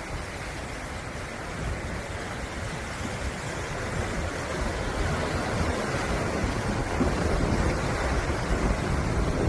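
Sea waves washing onto the shore, a steady surf noise that swells louder in the second half, with wind buffeting the microphone.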